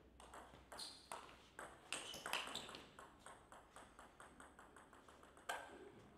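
Table tennis ball struck by rubber-faced bats and bouncing on the table during a serve and rally: sharp, light clicks. They come irregularly at first, then as a quick run of lighter clicks, with a louder click near the end.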